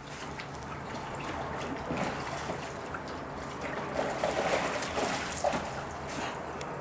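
Water splashing and sloshing in a plastic kiddie pool as a giant schnauzer moves, lies down and gets up in it, with louder splashes a little past the middle.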